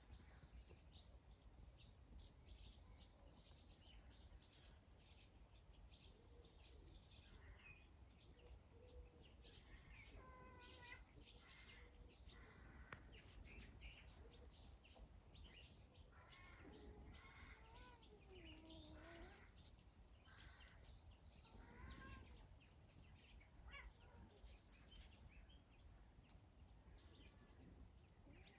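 Faint birdsong outdoors: scattered high chirps and a few longer calls that bend in pitch, over a steady low rumble.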